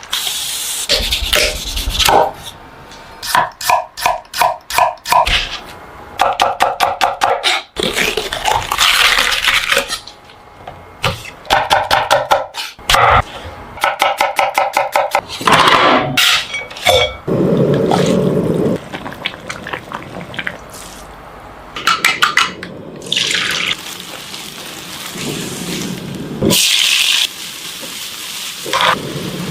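Kitchen food-preparation sounds: water running at a sink and dishes and utensils clattering, with many short knocks.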